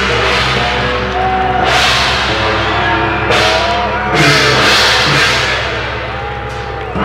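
A live saxophone quartet playing free jazz: several held notes at different pitches, with one line bending up and down. Short surges of noise come in over them a few times.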